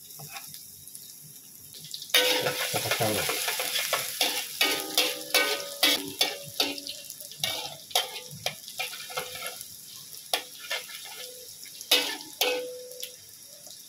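Chopped shallots and garlic frying in oil in a metal wok: a loud sizzle starts suddenly about two seconds in. A metal spatula scrapes and clacks repeatedly against the wok as they are stirred.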